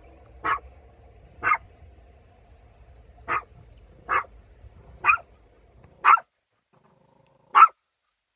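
Chihuahua barking: seven short barks at uneven gaps of about a second.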